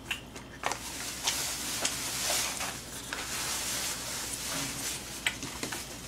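Close-miked eating sounds: chewing and slurping from a small plastic cup, with a few light clicks of chopsticks against the plastic containers.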